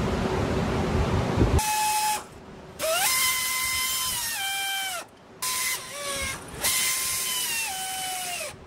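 Air die grinder with a Scotch-Brite pad cleaning the aluminium sealing surface of an oil filter housing: the tool whines in bursts of one to three seconds, its pitch stepping down as it is pressed onto the part, with short pauses between. A steady hiss comes before the first burst, which starts about a second and a half in.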